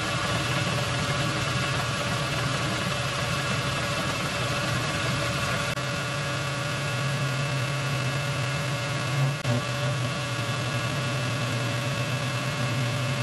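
Metal lathe running steadily while a carbide insert tool turns down a steel bar: a constant machine hum with several steady whining tones above it, and a brief bump about nine seconds in.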